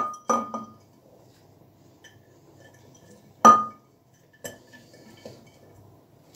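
Glass jar clinking and knocking as green peppers are packed into it by hand: a couple of light ringing clinks at the start, one sharp ringing clink about three and a half seconds in, then a few softer knocks, with quiet rustling of the peppers between.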